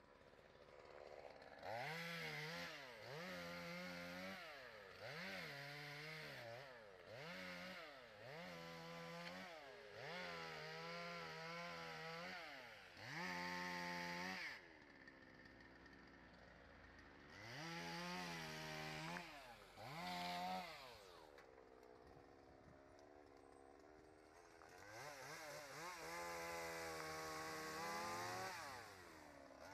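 Patriot GS142 two-stroke chainsaw cutting through branches, revved up and let off in quick bursts about once a second, with a longer cut near the end. It drops back to idle twice in between.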